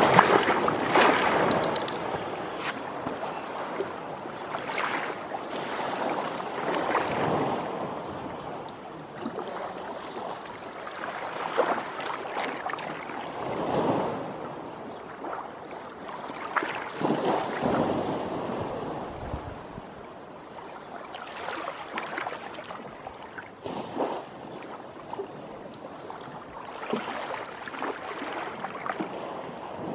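Small waves of a calm sea lapping and splashing at the water's edge over rocks and sand. The wash swells and fades every couple of seconds, with brief splashes.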